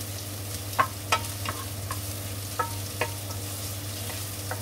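Sliced onions sizzling as they fry in a non-stick frying pan, being cooked down to caramelize, while a wooden spatula stirs them. The spatula knocks against the pan about seven times, loudest about a second in.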